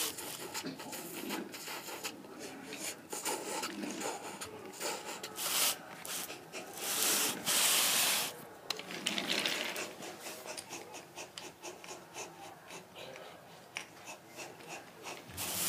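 Wooden toy train rolling along wooden toy track, its wooden wheels rubbing and scraping on the rails with scattered clicks, in uneven surges that are loudest about halfway through.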